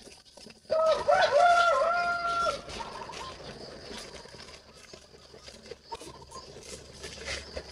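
A rooster crowing once, starting about a second in and lasting about two seconds, in a few stepped, held notes.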